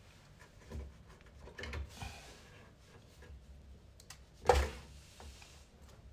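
Handling noises: a few soft rustles and knocks, then one sharp, loud knock about four and a half seconds in.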